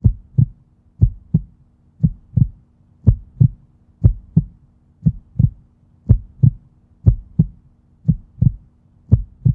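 Heartbeat sound effect: pairs of low thumps, lub-dub, about one pair a second, over a faint steady low hum.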